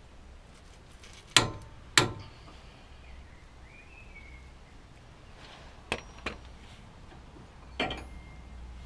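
Click-type torque wrench clicking twice, about half a second apart, signalling that the new upper ball joint has reached its set torque of 105 Nm. A few fainter metal clicks follow.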